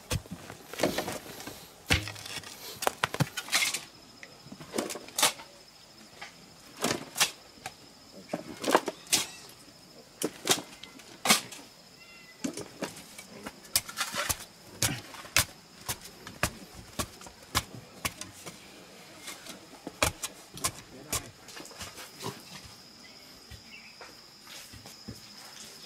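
Hand digging in hard clay soil: a metal digging tool strikes and scrapes into the bank in irregular knocks every second or two, with clods dropping into a pile. A steady high insect buzz carries on behind it.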